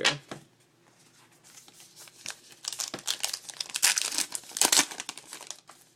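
A foil trading-card pack being torn open and its wrapper crinkled, starting about two and a half seconds in, with the loudest crackles around four and five seconds in.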